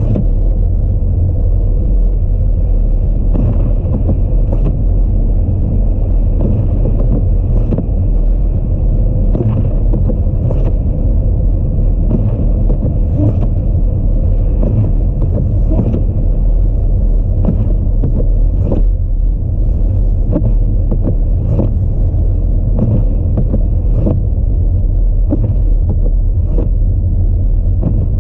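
Audi A4 driving on snowy roads in a snowstorm: a steady low rumble of road and wind noise, with frequent short, irregular knocks over it.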